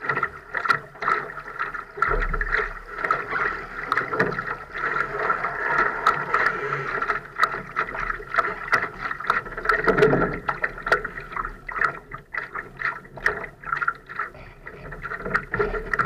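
Water lapping and slapping against the hull of a Laser sailing dinghy, with many short sharp knocks and ticks throughout and a heavier, lower splash about ten seconds in.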